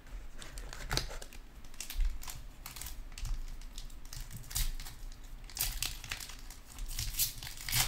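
Foil wrapper of a 2019-20 Panini Chronicles basketball card pack crinkling as hands grip and pull it open, in many short, scattered crisp crinkles.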